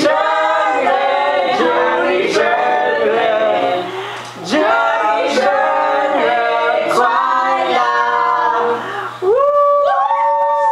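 A small group of men and women singing together without accompaniment, ending on a long held note near the end.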